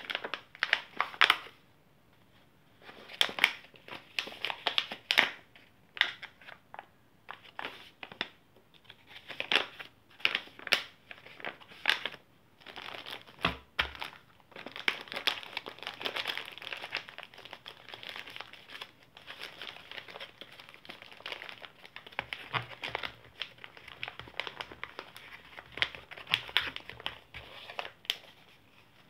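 Plastic bags and paper packets crinkling and rustling as they are handled and folded, in an irregular run of crackles that grows busier about halfway through.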